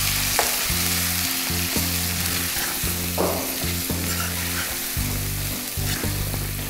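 Chicken pieces frying and sizzling in a pan while a steel spatula stirs the freshly added chili and coriander powder through them, with short scrapes of the spatula against the pan. A low steady hum runs underneath, cutting out and coming back several times.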